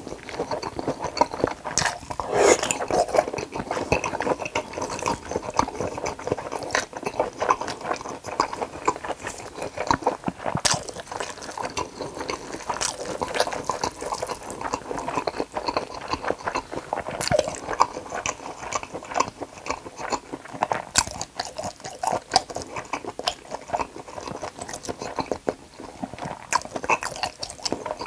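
Close-miked chewing of thick smoked pork neck and spicy cold bibim noodles: a steady run of wet smacking and soft clicks, with sharper bites now and then.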